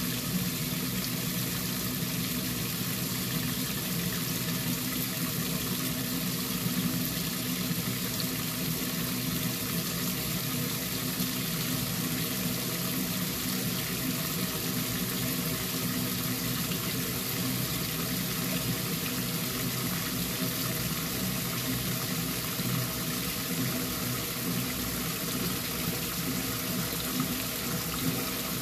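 Water spraying into the stainless tub of a 1957 Blackstone 350 automatic washer and splashing onto a load of work pants, a steady unbroken rush with a low hum beneath it.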